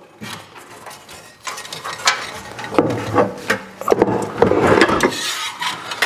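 Metal RV furnace being tipped over and shifted on a metal work cart: scraping, clunks and rattles, a few light clicks at first, then a busier run of handling noise from about a second and a half in.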